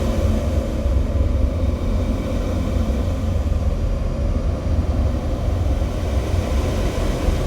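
A steady, dense low rumble with a fainter hiss above it, part of a recorded music track. No beat or melody stands out.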